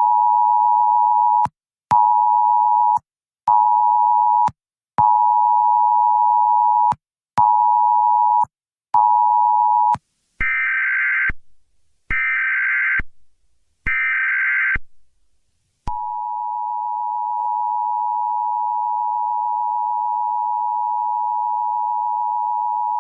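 Emergency alert tones. First a Wireless Emergency Alert attention signal: the two-tone sound pulses in a long-short-short rhythm, twice over. Then three one-second squawks of EAS SAME header data, followed by the steady EAS two-tone attention signal held for several seconds, announcing a severe thunderstorm warning.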